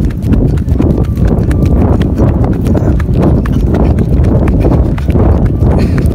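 A person running, the footfalls thudding in a steady rhythm, with heavy wind and handling rumble on a handheld phone's microphone.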